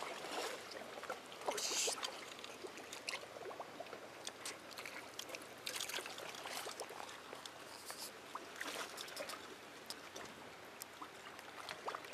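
Seawater lapping and trickling against a concrete harbour wall, with scattered light clicks and rustles throughout.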